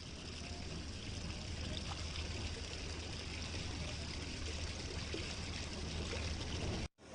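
Godavari river in flood, its fast, muddy water rushing steadily, with a low rumble under the hiss of the flow.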